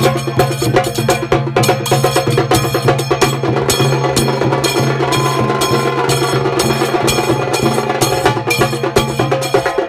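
Live drumming on a large rope-laced double-headed bass drum, with brass hand cymbals clashing in a fast, steady rhythm.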